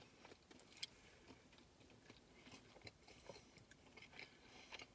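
Faint chewing of a mouthful of creamy macaroni and cheese, with scattered soft mouth clicks and no crunch.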